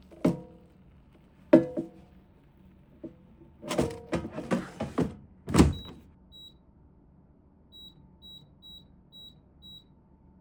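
Several ringing clatters of kitchenware being handled, then a run of six short, high electronic beeps like an appliance's buttons being pressed, over a faint steady hum.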